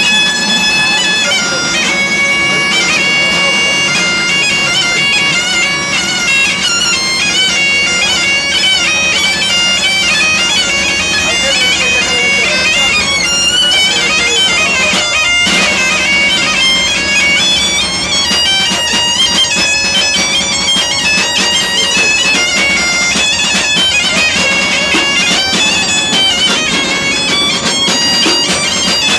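Asturian gaita (bagpipe) playing a fast, ornamented melody over a steady drone, with a momentary break in the sound about halfway through.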